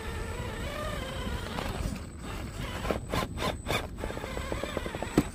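Vanquish Phoenix RC rock crawler climbing a rock ledge: the electric motor and drivetrain whine, rising and falling with the throttle, while the truck knocks and scrapes against the rock. A fast run of clicks comes about four seconds in, and there is a sharp knock near the end.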